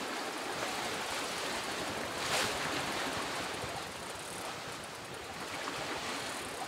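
Steady rush of moving water and waves, with a brief louder surge about two seconds in.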